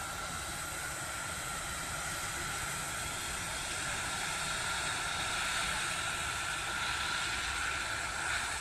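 A Batik Air airliner's turbofan jet engines running as it taxis past close by: a steady rushing hiss with a high whine, growing a little louder in the second half.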